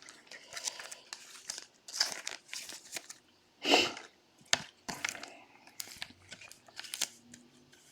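Trading card packaging and cards being handled: a card pack wrapper crinkling and tearing, with irregular light crackles and snaps and a louder rustle nearly four seconds in.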